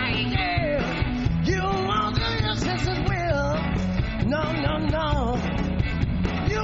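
Live blues-rock band playing, with bass and drums under a lead melody that bends up and down.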